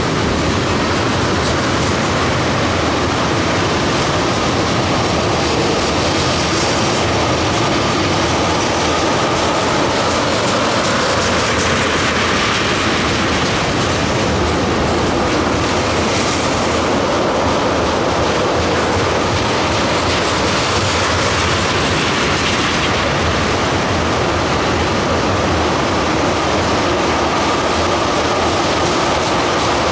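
Norfolk Southern ethanol tank train's cars rolling past: a loud, steady rumble and clatter of steel wheels on the rails, with clickety-clack over the rail joints.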